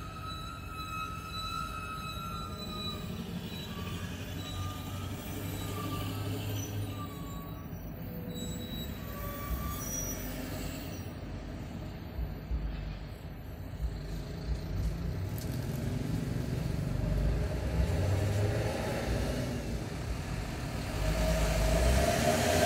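Heavy vehicles idling in traffic: a steady low engine rumble from trucks and a bus. It grows louder near the end as the traffic moves off.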